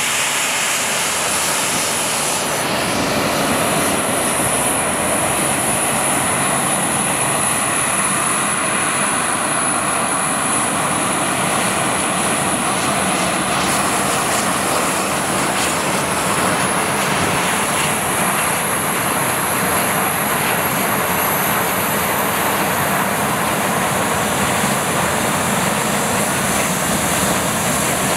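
Boeing 737-300's two CFM56-3 turbofan engines running as the jet taxis and turns: a steady jet roar with a thin high whine that climbs slowly in pitch over the second half.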